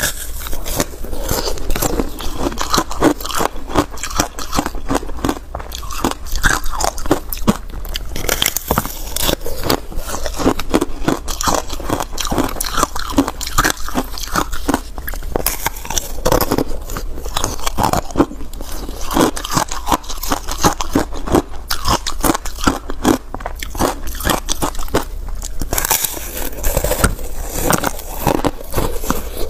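A person biting and chewing a slab of ice frozen with passion fruit pulp and seeds: continuous crunching and crackling as the ice breaks between the teeth.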